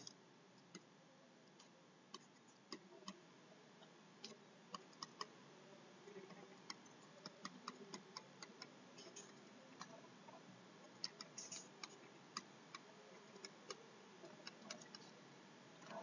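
Faint, irregular ticks of a stylus tapping on a writing tablet during handwriting, over near silence.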